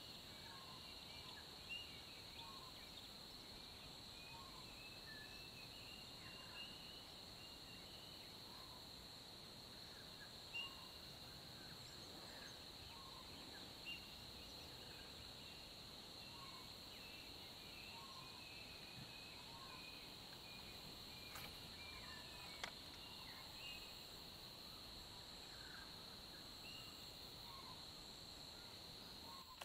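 Faint outdoor ambience: a steady high-pitched insect drone with many short bird chirps scattered through it.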